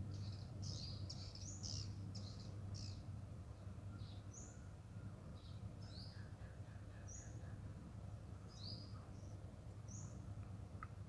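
Small birds chirping in short, high notes, a quick run of them in the first few seconds and scattered single chirps after, over a faint steady low hum.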